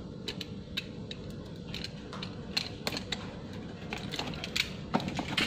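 Utility knife cutting the tape and cardboard along the top of a cardboard box, with scattered scrapes and light clicks as the box is handled.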